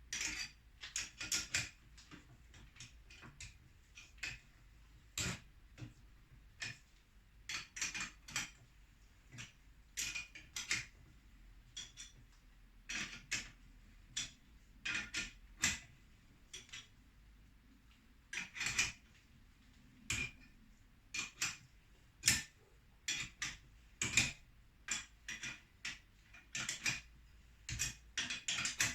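Irregular metallic clicks and clinks of a wrench working the nuts that compress a motorcycle rear shock's spring, steel on steel, in clusters of a few strikes with short pauses between.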